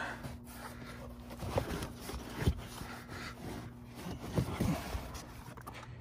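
Soft rubbing and scraping with a few dull knocks, irregularly spaced, over a steady low hum: handling noise as the phone is moved about at the car's open door.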